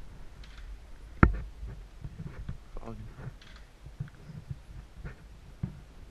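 A sharp knock about a second in, then scattered faint clicks and rustles; no engine is running.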